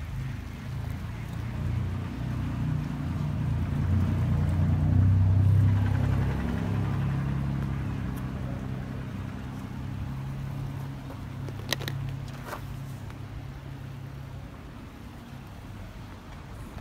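A motor vehicle's engine hums low and steady, growing louder to a peak about five seconds in and then slowly fading as it passes. Two sharp clicks come about twelve seconds in.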